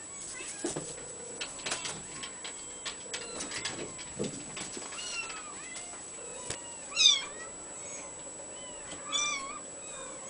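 Abyssinian kitten mewing: a string of thin, high-pitched mews, with the two loudest about seven and nine seconds in. Light scattered taps and clicks run underneath.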